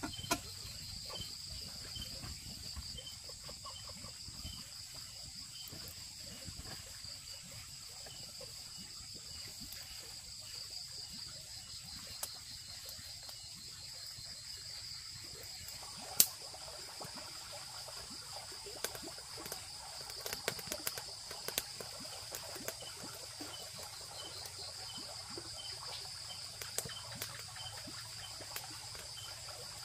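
Steady insect chorus, a continuous high trill that runs unbroken, with scattered light clicks and one sharp knock a little past halfway.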